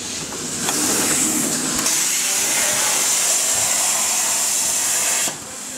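CNC plasma cutter's torch cutting sheet metal: a loud, steady hiss that builds up within the first second and drops away near the end.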